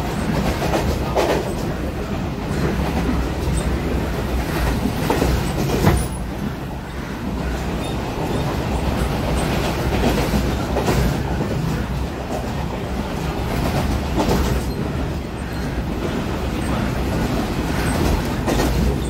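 Passenger train running at speed, heard from inside a carriage: a steady rumble of wheels on rails, with a clack now and then as the wheels cross rail joints.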